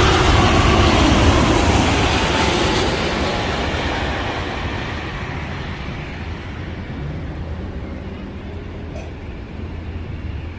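Jet airliner passing low overhead on landing approach, its engine noise loud at first and fading away over about six seconds.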